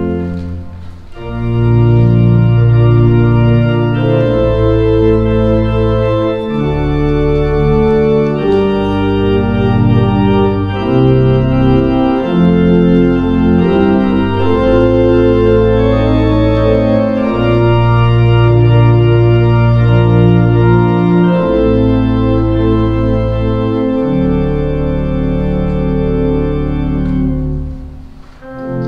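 Church organ playing slow, sustained chords over deep bass notes, with short breaks between phrases about a second in and again near the end.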